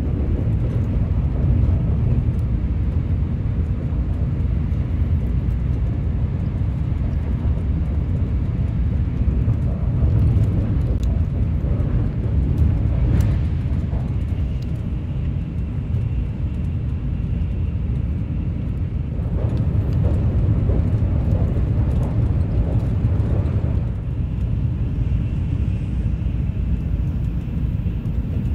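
Steady low rumble of a Shinkansen bullet train's passenger cabin at speed, with a few faint clicks along the way.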